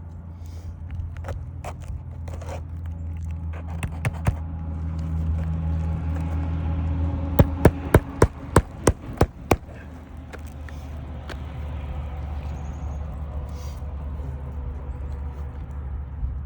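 A hammer driving roofing nails into an asphalt shingle: a few light taps early on, then about halfway through a run of about nine quick, sharp strikes, roughly four a second. A steady low rumble runs underneath.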